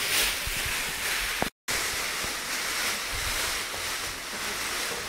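Aluminium foil crinkling and rustling as it is handled and wrapped around the dog, a steady rustle that drops out for an instant about a second and a half in.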